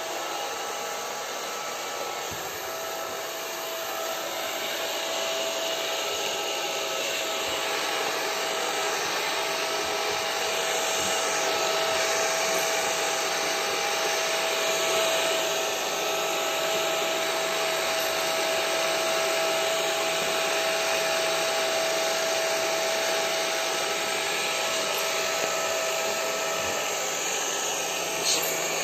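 Handheld electric hair dryer running steadily: an even rush of blown air with a thin, steady whine from its fan motor.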